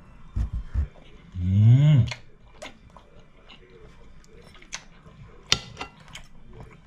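A man chewing a mouthful of food close to the microphone. About a second and a half in comes a short voiced sound that rises then falls in pitch, and there are a few sharp clicks later on.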